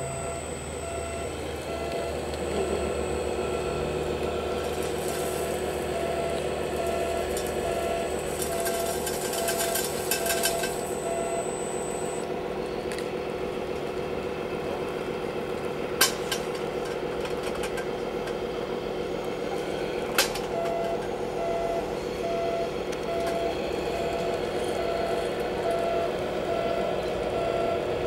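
Radio-controlled model tipper truck with its bed raised to dump gravel, a small motor humming steadily, with a repeating electronic beep through much of the time. Two sharp clicks come in the second half.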